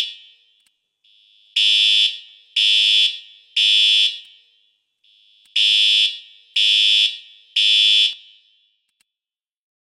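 Fire alarm sounder beeping in the temporal-three evacuation pattern: two groups of three loud, high-pitched half-second beeps with a pause between groups, after which the alarm stops.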